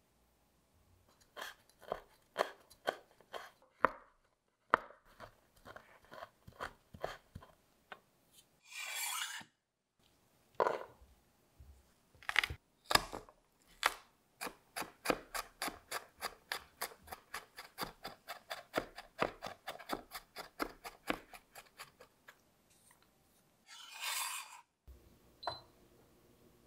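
Chef's knife cutting on a bamboo cutting board: scattered chops through rosemary, then two hard presses of the flat of the blade crushing garlic cloves, then a fast, even run of mincing chops, about four a second. Two brief brushing sweeps break in, and there is a short beep near the end.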